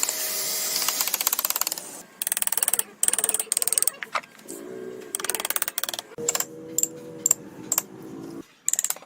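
Woodworking power tool running in several short bursts, each a fast, even clatter, with brief pauses between bursts.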